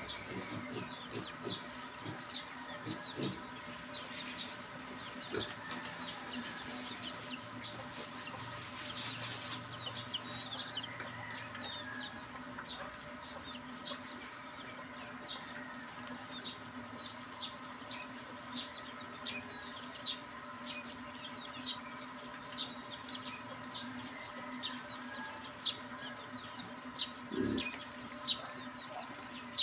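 Two pigs eating dry feed off a concrete pen floor, with short chewing and smacking clicks about once a second, while chickens cluck in the background. Feed is being tipped out of a sack at the start, and a faint steady hum runs underneath.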